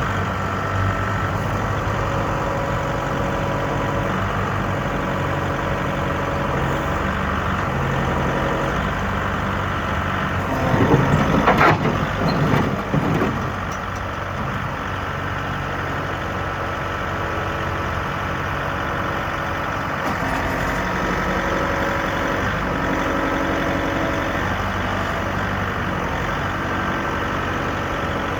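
Kubota M62 loader backhoe's diesel engine running steadily, its pitch shifting now and then. A louder, rougher stretch lasts about three seconds near the middle.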